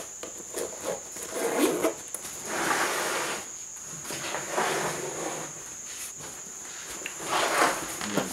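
Handling of a nylon Thule Crossover backpack: a zipper pulled along a pocket, then the fabric and shoulder straps rustling as the pack is lifted and turned over, in several short swells.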